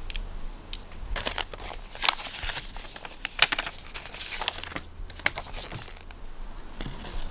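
Paper envelope being torn open and the folded card inside pulled out and opened: a run of short paper rips and rustles.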